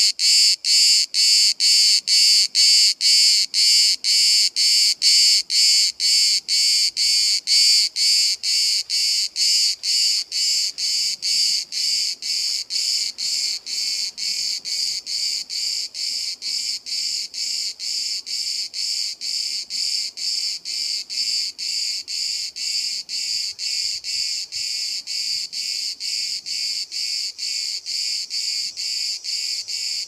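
A cicada singing close by: a loud, shrill buzzing song broken into even pulses, about two a second, without pause. It eases a little in loudness over the first half, then holds steady.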